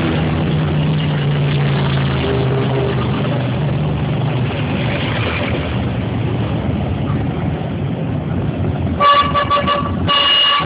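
Motorcycle engines running, then a vehicle horn honked in four quick short toots about nine seconds in, followed by one longer blast near the end.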